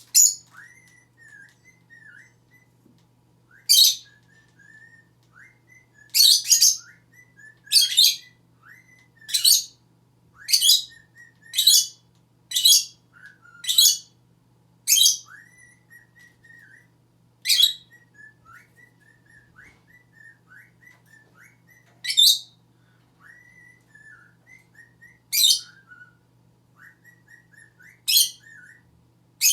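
Pet lovebird calling: short, shrill, high chirps repeated every one to two seconds, with softer twittering chirps in between.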